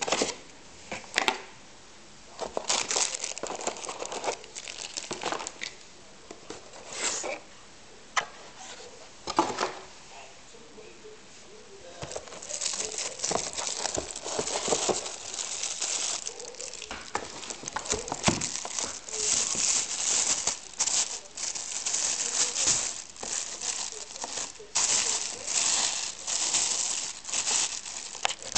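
Cardboard box packaging being handled, with scattered scrapes and knocks, then from about twelve seconds in a plastic bag wrapping a camera body crinkling almost continuously as it is pulled out and handled.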